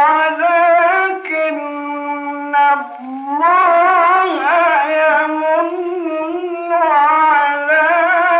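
A male reciter chanting the Quran in the melodic style, drawing out long, ornamented held notes with wavering pitch. There is a short break for breath about three seconds in.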